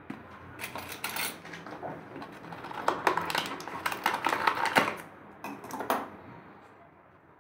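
Clicking, tapping and clattering of kitchen utensils and spice containers being handled while spices are got ready: a short burst about a second in, a longer run between about three and five seconds, a few more taps near six seconds, then it dies away.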